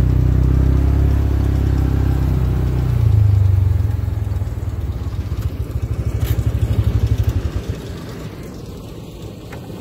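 Tractor engine running under load while pulling a Krone KR 125 round baler, a loud steady hum close by that turns pulsing about halfway through and fades away over the last couple of seconds as the outfit moves off.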